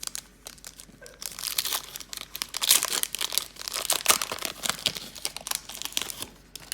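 Foil wrapper of a 2018 Donruss football card pack crinkling and tearing as it is ripped open by hand: a dense, crackly rustle that starts about a second in and stops shortly before the end.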